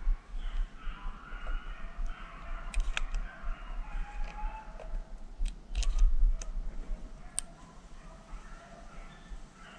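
Dogs baying off in the distance in drawn-out, repeated calls, with a few sharp clicks and snaps near the middle.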